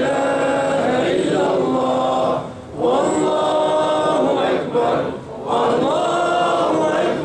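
Melodic Arabic chanting by male voice in long, drawn-out phrases, with short breaks for breath about two and a half and five seconds in.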